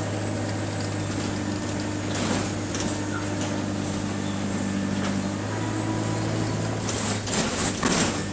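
Single-deck bus's diesel engine running under way, heard from inside the passenger saloon as a steady drone whose pitch shifts about halfway through. Brief louder noisy bursts come about two seconds in and again near the end.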